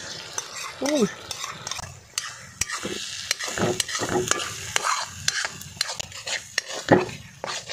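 Beaten egg with sautéed tomato, garlic and onion sizzling in a pan while it is stirred, the utensil scraping and clicking against the pan over and over: egg being cooked into a tomato sauce.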